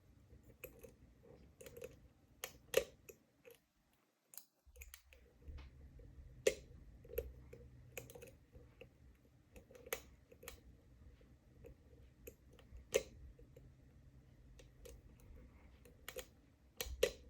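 Irregular small clicks from a lock pick working the pin tumblers of a Lockwood oval cylinder under tension, with a few louder clicks as pins set or drop. The sound cuts out briefly about three and a half seconds in.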